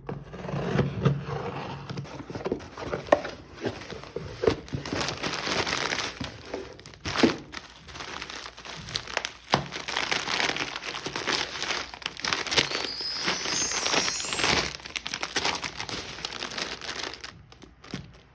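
Packaging crinkling and rustling as it is handled, full of small crackles. It eases off for a moment about eight seconds in, and a short rising high chirp comes about thirteen seconds in.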